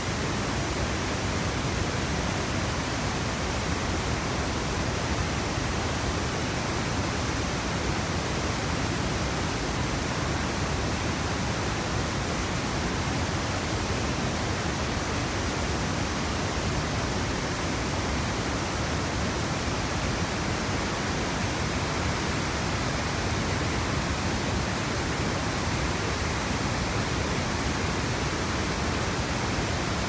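Sogi Falls in flood after heavy rain: a steady roar of churning floodwater and spray, with no breaks or changes.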